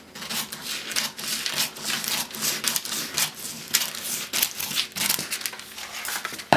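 Scissors cutting across a sheet of water-soluble fusible embroidery stabilizer, with a rapid, irregular run of crisp snips and the papery sheet crinkling as it is cut and handled.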